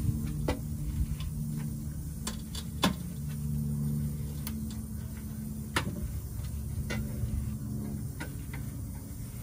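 A 5 mm Allen key working a bolt out of an aluminium skid plate: a handful of sharp, irregular metal clicks as the key is turned and reseated in the bolt head, over a steady low hum.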